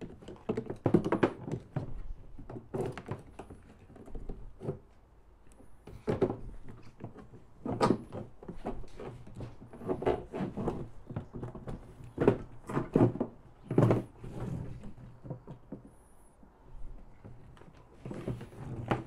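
Irregular thunks and knocks of a fuel pump assembly and hands bumping against a plastic IMS fuel tank as the pump is worked through the tank's opening.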